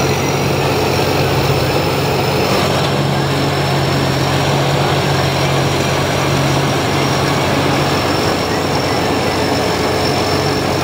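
SCY tracked rice combine harvester running steadily while cutting and threshing rice: an even engine hum with dense machinery noise and a thin high whine over it.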